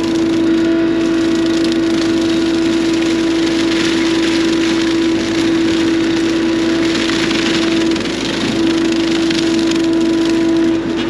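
Bobcat E42 mini excavator running with its hydraulic brush cutter attachment spinning, a loud, steady mechanical hum with a constant tone over a wide rush of noise.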